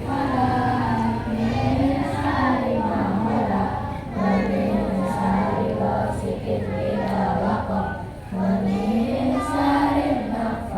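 A group of children singing a prayer together in unison, with long held notes in a slow rising and falling melody.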